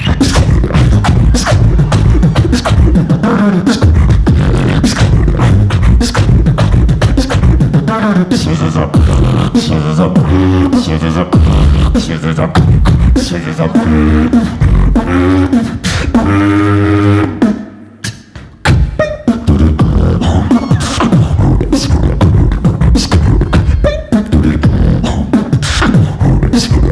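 Solo beatboxer performing a live routine: heavy bass tones and fast kick and snare sounds under pitched vocal lines that slide up and down. The beat cuts out briefly about two-thirds of the way through, then comes back in.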